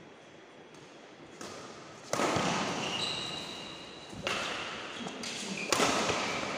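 Badminton rackets striking a shuttlecock during a doubles rally: several sharp hits, the first about two seconds in, each ringing on in the echo of a large sports hall. Short high squeaks come between the hits.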